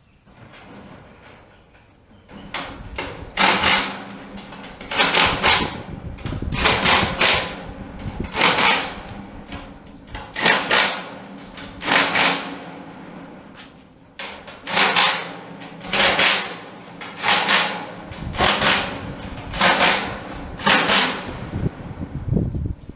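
Hand-held power driver running the bolts of the elevator's steel splice plates, in a string of short bursts one to two seconds apart.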